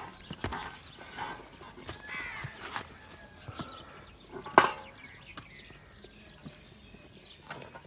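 Goats on stony ground: scattered sharp hoof knocks and shuffling, with a short harsh animal call about two seconds in and one loud sharp knock a little past halfway.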